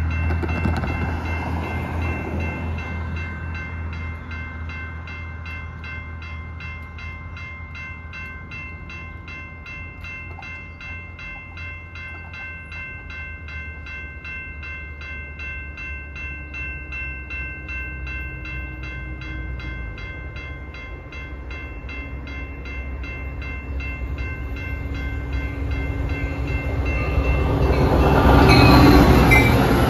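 Railroad crossing warning bell ringing in a fast, steady rhythm while the signal lights flash and the gates are down. A car's engine is heard at the start, and an approaching Metra commuter train grows loud near the end.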